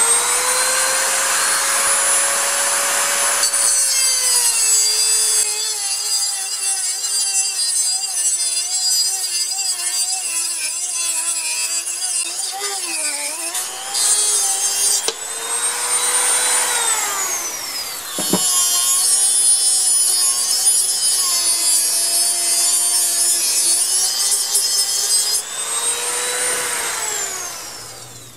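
Dremel rotary tool with a cut-off wheel cutting through a steel bolt held in a vise: a high motor whine that sags in pitch as the wheel bites, with a harsh grinding hiss of the wheel on metal. It winds down about halfway, starts up again after a click, and winds down once more near the end.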